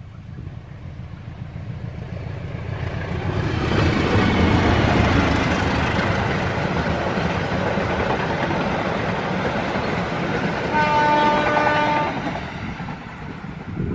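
Babaranjang coal train's diesel locomotive and wagons running past on the rails, the rumble swelling over the first few seconds and staying loud. Near the end the locomotive sounds one horn blast of about a second.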